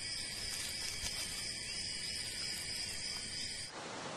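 Insect chorus of crickets or cicadas-like callers: several steady, high-pitched tones drone together. Near the end it cuts to an even, featureless hiss.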